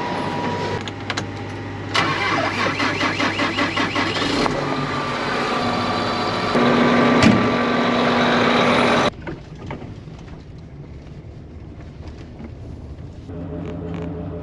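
An engine cranking over with a fast, even chugging, then catching and running loudly. About nine seconds in, it gives way to a quieter steady engine hum.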